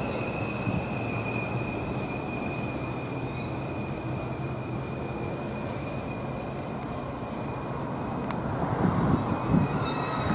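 Metra bilevel commuter train rolling away on the rails, a steady rumble with a thin, high, steady whine from the wheels that fades as it recedes. Near the end the rumble grows louder again.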